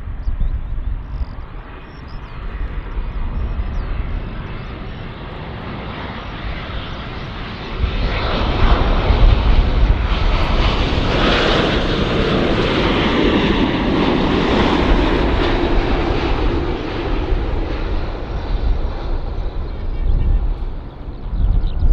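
Jet airliner's engines passing close by. The noise swells sharply about eight seconds in, is loudest a few seconds later, then slowly fades.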